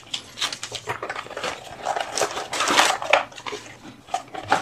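Packaging being handled: a small clear plastic bag crinkling and rustling in the hand and a cardboard graphics card box being lifted and shifted, with irregular light clicks and knocks.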